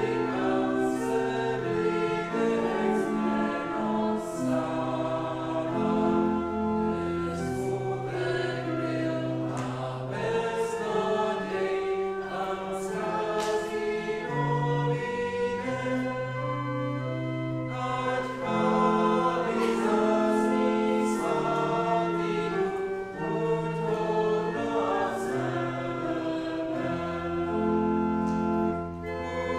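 Congregation singing a hymn together, accompanied by a pipe organ holding steady chords with low bass notes that change every second or two.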